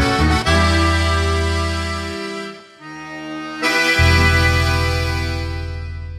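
Closing music with an accordion: a few quick notes, then a long held chord, a brief break and a final held chord that slowly fades out.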